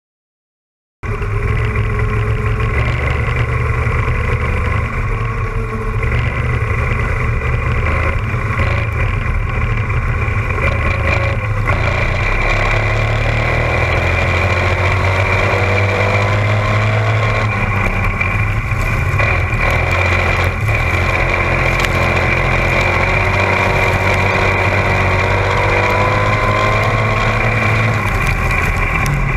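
Dirt-track spec modified race car's engine running, heard from on board in the open cockpit. It cuts in suddenly about a second in and holds a steady, loud drone, its pitch rising and falling a little with the throttle.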